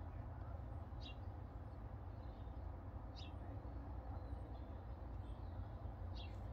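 Outdoor ambience: a steady low rumble and hiss, with three short, high bird chirps spaced a couple of seconds apart.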